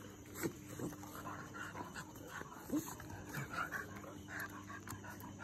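Dogs play-fighting, giving a few short whimpers and yips, the sharpest about half a second in and just before the three-second mark.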